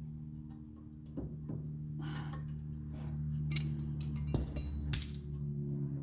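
Steel hand tools clinking and knocking on metal while a track-rod ball joint is worked loose. There are a few separate knocks, some short ringing clinks, and a sharp loud click about five seconds in, over a steady low hum.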